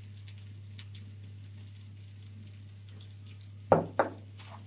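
Tomato-paste sauce sizzling faintly in a pan on a gas stove, with a steady low hum underneath. Near the end come two sharp knocks, a wooden spoon striking the pan.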